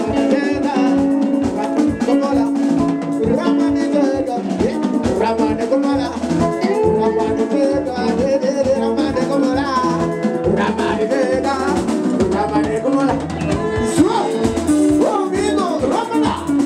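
Live sungura band music: an electric lead guitar plays held and bending notes over a bass guitar and a steady drum-kit beat.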